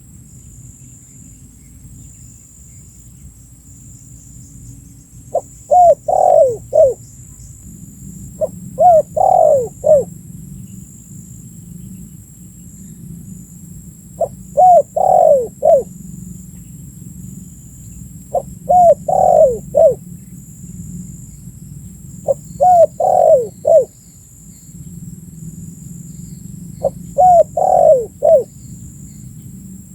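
Spotted dove (tekukur) cooing, the full calling song: six phrases of three or four short falling coos, one about every four seconds.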